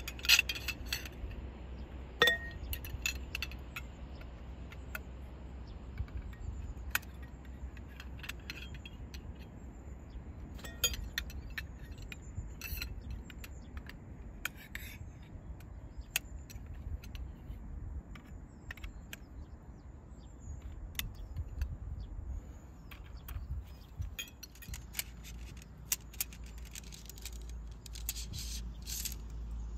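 Small hard objects clinking and clicking as gear is handled, with scattered sharp knocks. The loudest comes about two seconds in and rings briefly like metal. Under it runs a steady low hum.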